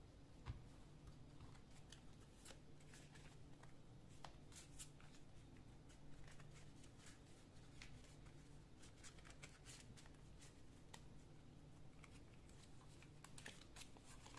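A deck of tarot cards shuffled by hand, giving faint, scattered soft clicks and flutters of card stock that come thicker near the end, over a low steady room hum.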